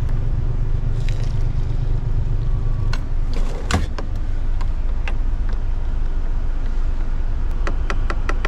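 A metal teaspoon clinking against a stainless-steel travel mug as instant coffee is spooned in and stirred, a few separate clinks and then a quick run of clinks near the end, over the steady low rumble of the lorry's idling engine.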